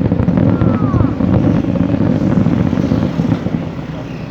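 A dense fireworks barrage: a continuous rumbling roar full of crackles, with a brief falling whistle about half a second in. It slowly dies down near the end.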